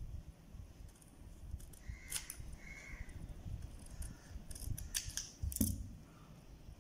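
Scissors cutting stiff chart paper in a few short, separate snips.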